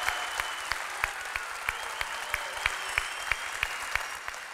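Audience applauding, with a regular beat of claps about three a second running through the general clapping.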